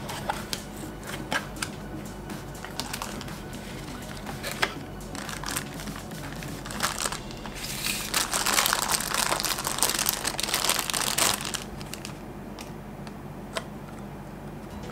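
Packaging being handled: scattered taps and rustles of a cardboard box, then a clear plastic bag crinkling loudly for about four seconds, starting about halfway through, as a small subwoofer driver is pulled out of it.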